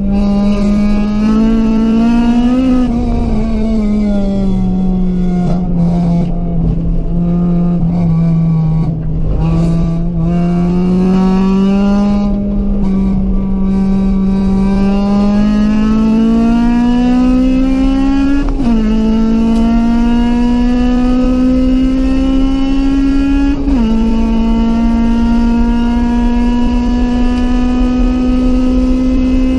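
Honda B16A1 1.6-litre DOHC VTEC inline-four in a CRX, heard onboard under hard driving. The revs ease off and dip, then climb steadily. Two abrupt drops in pitch a few seconds apart mark quick upshifts, each followed by the engine pulling up the revs again.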